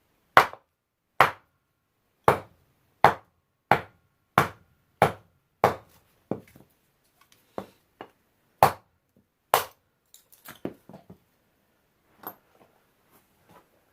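Heavy homemade knife made from a pipe wrench chopping into a block of wood: about a dozen sharp chops, roughly one every two-thirds of a second, then a few lighter knocks and clicks over the last few seconds.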